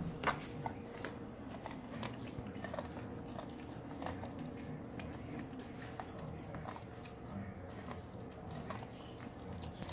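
Golden retriever nibbling and chewing kernels off an ear of corn on the cob, with irregular small crunches and clicks of teeth on the cob.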